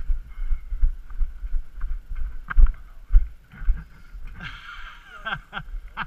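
Wind buffeting a helmet camera's microphone in uneven low rumbles as a rider comes in on a steel-cable zip line, with a steady whir from the trolley's wheels running on the cable. Voices come in near the end.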